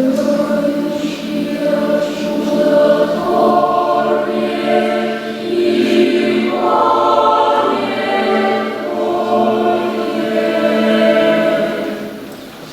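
Mixed choir singing a cappella in several voice parts: an Orthodox troparion, with sustained chords and a phrase closing near the end.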